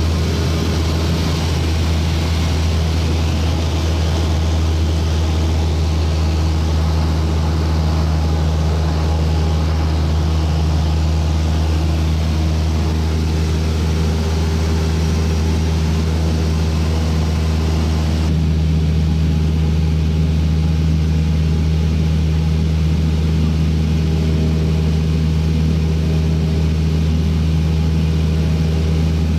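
Cessna light aircraft's piston engine and propeller droning steadily in cruise flight, heard from inside the cabin, with a hiss of air over it that thins about two-thirds of the way through.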